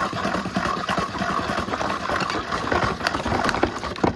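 Power cable of a 2005 Numatic Henry HVR200-22 vacuum cleaner being wound back in with its hand-cranked cable rewind: a continuous fast rattling and clicking of the cable and reel.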